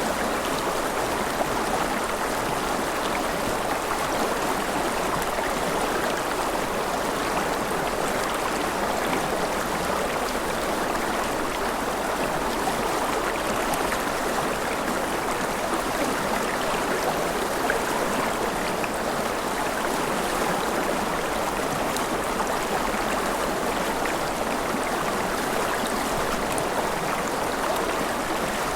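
Forest river flowing over rocks: a steady, even rush of running water with a fine bubbling texture.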